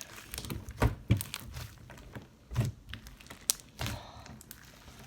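Handling noise: a few scattered soft knocks, taps and clicks with some crinkling, spaced irregularly about a second apart.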